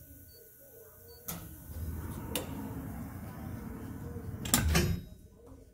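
James Engineering MAX deburring machine moving a helicopter ring gear on its fixture: a low mechanical rumble starts about a second in with a sharp click, another click follows, and a louder clatter near the end before it dies away.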